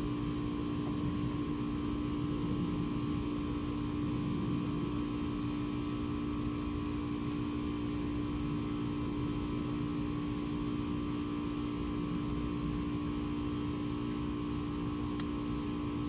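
A steady hum with constant tones over a low background noise, unchanging throughout.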